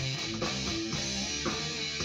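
Electric guitar being played, a run of picked notes and strummed chords.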